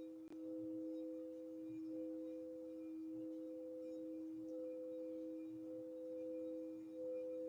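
Crystal singing bowls being rimmed, a mallet circling the rim: two steady ringing tones, the higher one swelling and dipping about once a second with the turns of the mallet.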